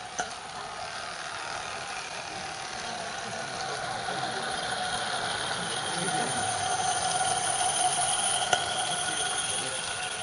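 A 16mm-scale narrow-gauge garden railway train, a small tank locomotive hauling wagons, running on the curved track: a rattle of wheels on rail with a steady high-pitched squeal, growing louder as it approaches and passes close.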